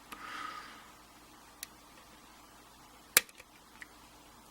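Small metallic clicks and taps from a hook pick probing the pin stack inside a Schlage pin-tumbler lock cylinder, a handful of isolated ticks with one sharper click about three seconds in.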